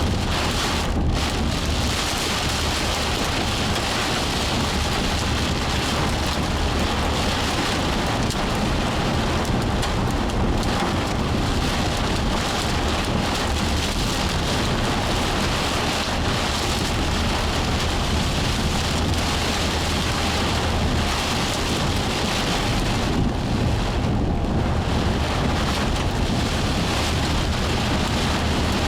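Heavy thunderstorm rain falling hard and steadily, with a steady low rumble underneath.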